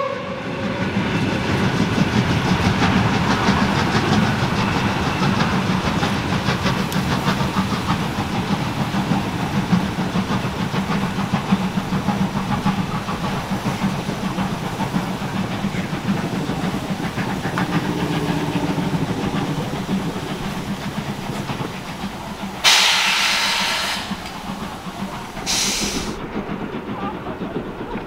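Steam-hauled train running with a steady rumble. Near the end come two loud bursts of steam hiss, the first about a second long and the second shorter.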